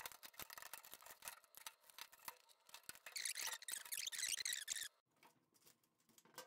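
Faint small clicks and plastic handling noises as wiring-harness connectors are pulled off the control board in a GE top-load washer's console, with a high squeaky stretch about three seconds in, then near silence for the last second and a half.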